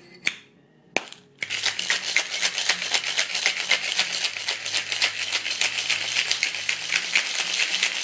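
Ice cubes rattling hard and fast inside a cocktail shaker, a glass fitted into a metal tin, as a drink is shaken to chill it. It starts about a second and a half in, just after a sharp knock as the shaker is closed.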